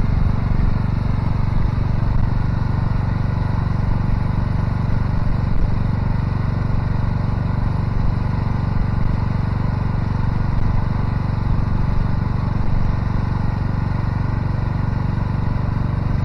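An engine running steadily at an even speed, with a constant low hum and no revving.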